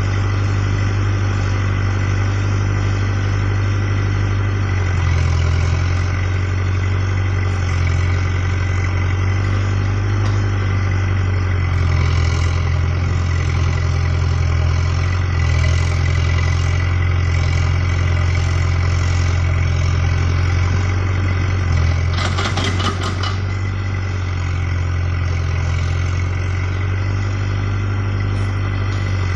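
Caterpillar backhoe loader's diesel engine running steadily, picking up speed slightly about five seconds in. A brief clatter comes about three-quarters of the way through.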